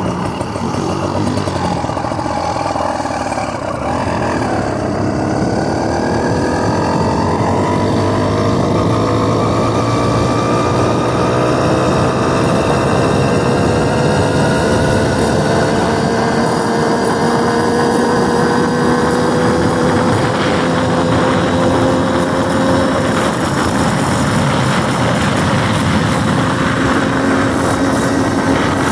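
Small engine of a motorized bicycle running while riding, its pitch climbing slowly as the bike gathers speed and then holding steady near the end.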